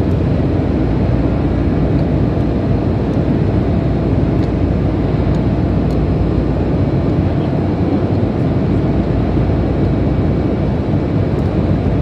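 Steady, loud, low machinery rumble, with a few faint ticks about halfway through.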